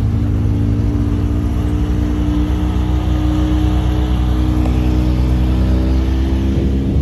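Modified pulling tractor's engine running steadily at a high idle: a loud, even engine note with little change in pitch.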